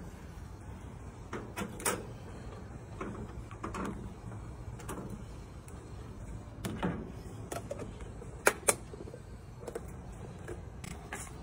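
Scattered clicks and knocks of things being handled, including a close pair of sharp knocks about eight and a half seconds in, over a steady low hum.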